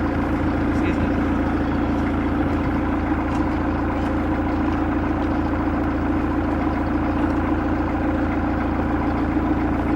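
Narrowboat engine idling steadily, a constant low rumble with a steady hum.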